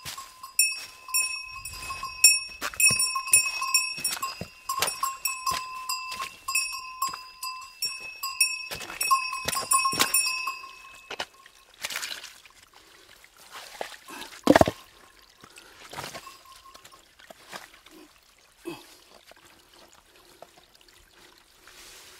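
A small metal bell, a bear bell, jingling over and over with each step for about the first eleven seconds, then falling still. After that come scattered clicks and knocks of stones, with one sharp knock midway that is the loudest sound, over a faint trickle of shallow creek water.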